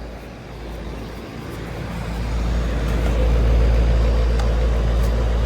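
Concord heat pump outdoor unit running: steady compressor hum under the condenser fan's whoosh, getting louder about two seconds in. The compressor is believed to be a Copeland scroll.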